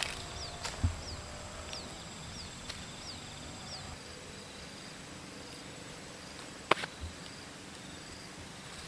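Open-air rural ambience: a short, high, falling chirp repeats about one and a half times a second for the first four seconds over a faint steady high insect whine. A single sharp click stands out a little before seven seconds in.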